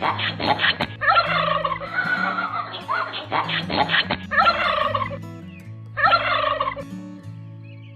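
Domestic turkey gobbling: a run of about six rattling calls, stopping about seven seconds in.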